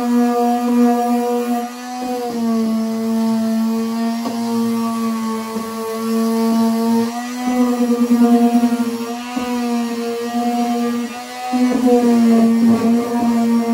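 Electric random orbital sander running steadily against the kayak's plastic deck, sanding it down before primer, with a loud, even whine whose pitch dips slightly now and then.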